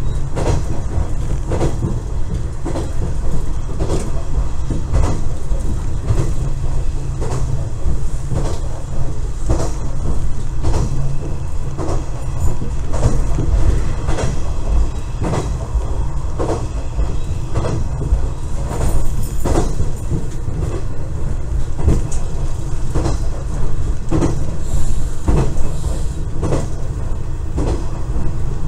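KiHa 110 series diesel railcar running along the line, heard from inside the rear cab: a steady low rumble of engine and running gear, with the wheels clicking over rail joints about once a second.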